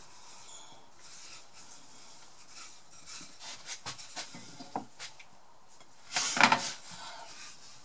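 Wooden rolling pin rolling pastry on a floured worktop: a soft rubbing with small knocks and clicks. About six seconds in, a short, louder clatter and scrape as a chopping board is moved on the worktop.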